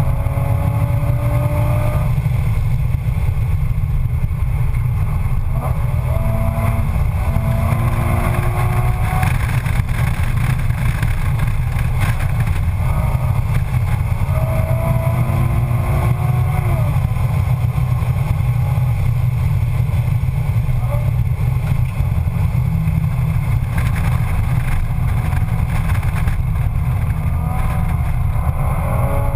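Nissan 350Z's 3.5-litre V6 heard from inside the cabin while lapping a race track: a heavy, steady drone under hard driving. The engine note climbs under acceleration several times, each climb breaking off as the revs drop.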